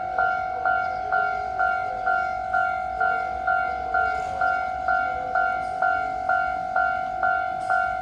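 Japanese railway level-crossing warning bell ringing in a steady repeating rhythm, about two strokes a second, each stroke a bright two-tone ding that dies away before the next.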